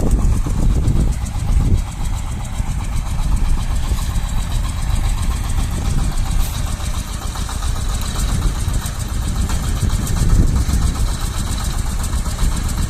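Shifeng SF-240 mini tractor's diesel engine running steadily under load, driving a rotary tiller through the garden soil.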